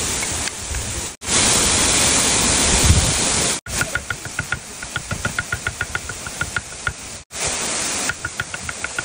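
Steady rush of a waterfall, loudest in the first few seconds. From a little before the middle, a cleaver chops onions on a wooden board in quick ringing strokes, several a second, over the water's noise.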